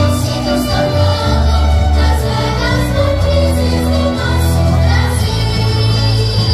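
Choir singing a Christmas cantata over instrumental accompaniment, with long sustained bass notes underneath.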